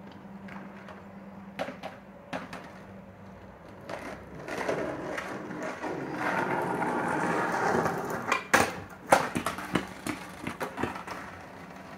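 Skateboard wheels rolling on pavement, the rumble growing louder as the board comes closer, then a quick series of sharp clacks as the rider steps off and the board rolls on across the concrete driveway.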